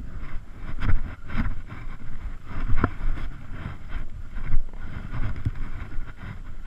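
Wind buffeting the microphone of a camera carried on foot, with irregular thumps and rustles of footsteps through dry hillside grass.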